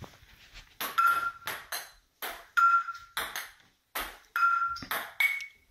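Ping-pong ball rallied between two frying pans used as paddles. Sharp clicks of the ball bouncing on the countertop alternate with a short ringing metallic ping each time a pan strikes it, four pan hits in all.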